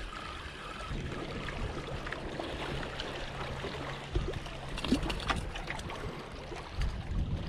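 Small waves lapping and trickling over the rocks at the water's edge, with a few sharp clicks in the second half.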